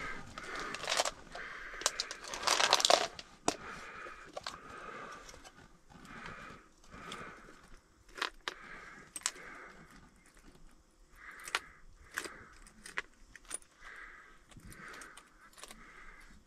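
Metal jigging spoons clicking and rattling in a clear plastic tackle box as it is handled and picked through, with a louder stretch of rustling and rattling about two to three seconds in.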